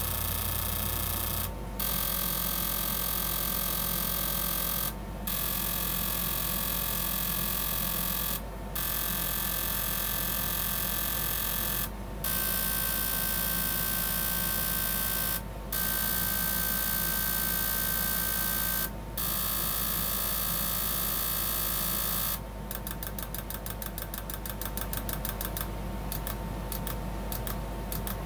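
Two JECS 1001-87650 fuel injectors from an Arctic Cat 800 SS firing on an injector test bench for a spray pattern test: a steady buzz and hiss of spray in runs of about three and a half seconds with short breaks, the pitch shifting a little from run to run. About 22 seconds in it turns to a rapid train of clicks as the injectors pulse one by one.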